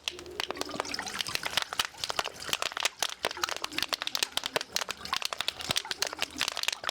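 A little water sloshing inside a thin aluminium bottle as it is shaken and handled, with a dense run of crackles from the metal.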